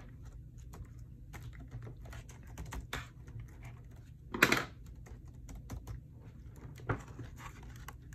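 Keys of a replacement HP 15 laptop keyboard clicking irregularly as hands press down across it to seat it in the frame, with a louder clatter about four and a half seconds in and a sharp click near seven seconds.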